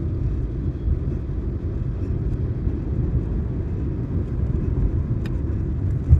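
Steady low rumble of a car's engine and road noise heard inside the cabin while driving, with a short thump near the end.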